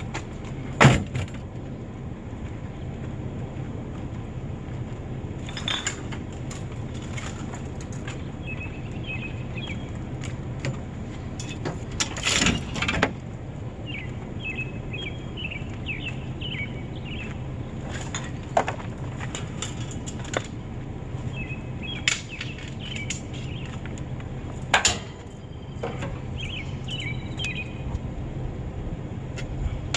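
Steady low rumble of a vehicle with scattered knocks and rattles, the loudest about a second in and around the middle. Birds chirp at intervals through it.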